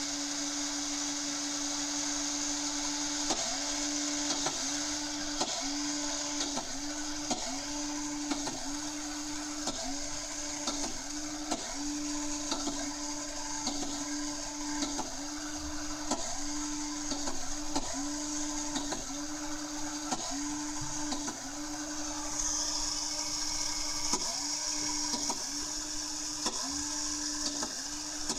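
Small electric drive motors of a Raspberry Pi ultrasonic robot car running with a steady whine that dips briefly about once a second.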